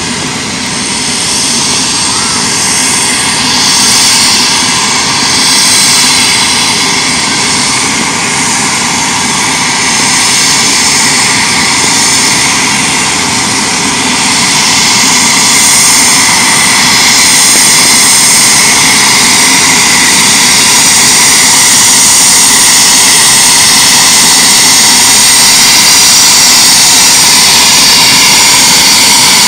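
The turboprop engine and propeller of a Cessna 208 Caravan amphibian floatplane running as it moves on the water. The sound is steady and continuous, wavers in level through the first half, then grows louder about halfway through and holds there.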